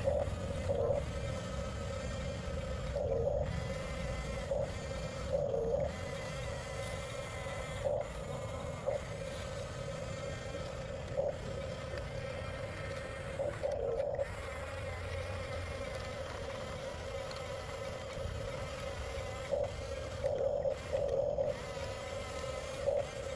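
Huina 1/14 scale RC bulldozer running: a steady mid-pitched whine over a low rumble, with brief louder surges every few seconds as it works.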